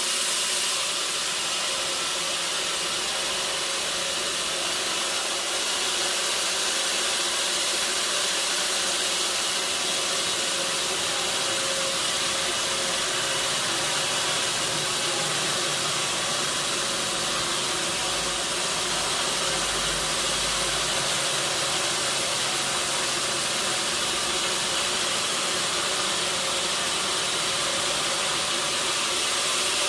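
Sawmill machinery running steadily: an even, hissing mechanical noise with a faint steady hum, and a low rumble for a few seconds in the middle.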